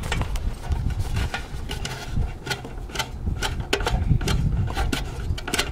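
Insulated electrical wire being fed and pulled through conduit into a metal electrical box: irregular clicks and scraping of the wire against the box, over a steady low rumble.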